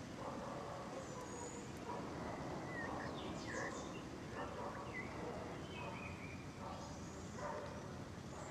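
Distant animal calls recurring every second or so over a steady outdoor background noise.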